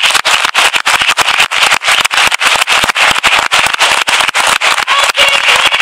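Crowd applauding: many hands clapping fast and irregularly.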